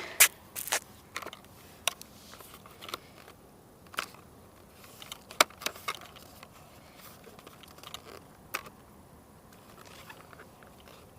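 Irregular clicks and knocks of hands handling the RC dirt bike, unplugging and swapping its plastic gyro cable connectors. Several sharp clicks come close together about a second in, then single knocks every second or few.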